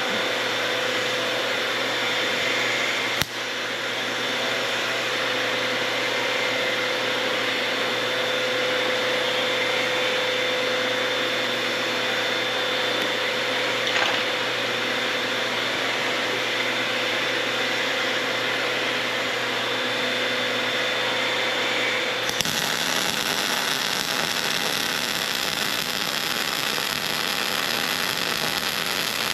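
Vulcan MIG-Max 215 MIG welder running solid wire under C25 shielding gas, its arc giving a steady hissing buzz as a long bead is laid on 1/4-inch steel frame joints. The sound changes character about 22 seconds in.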